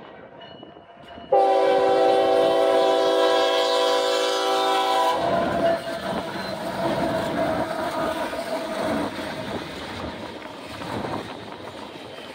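Diesel freight locomotive sounding its horn: one long blast, a chord of several tones, starting about a second in and lasting about four seconds. Then the locomotive's engine passes close by, followed by the rumble and clatter of double-stack container cars rolling on the rails.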